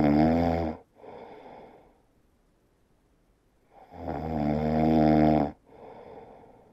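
Sleeping grey tabby kitten snoring: two loud snores about four seconds apart, each followed by a softer out-breath.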